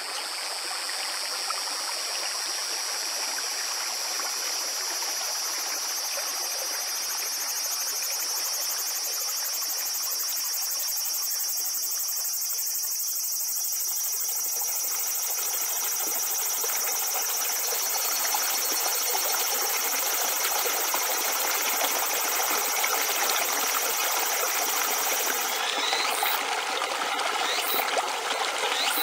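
Shallow river water rushing and trickling over rounded stones and pebbles, growing a little louder toward the end. A steady high-pitched buzz sits above the water and stops near the end.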